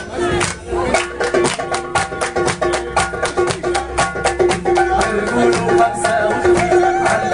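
Music with a quick, steady drumbeat under held melodic notes.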